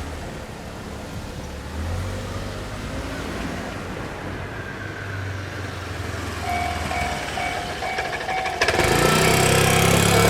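Low traffic rumble. About six seconds in, a Japanese railway level-crossing warning bell starts ringing, a repeated electronic ding at about two a second. Near the end a sudden loud rushing noise comes in under the bell.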